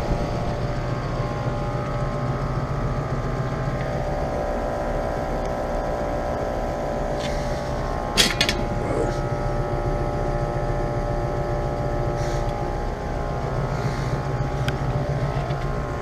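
2008 Comfortmaker central air conditioner condensing units running, the steady hum of their scroll compressors and condenser fans. There is one brief knock about eight seconds in.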